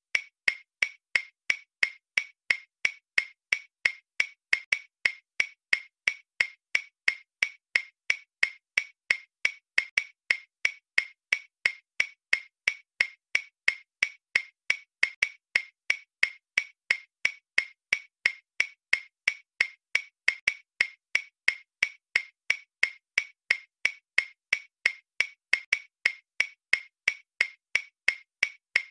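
Ticking clock sound effect marking answering time: short, even ticks at about two a second, running steadily.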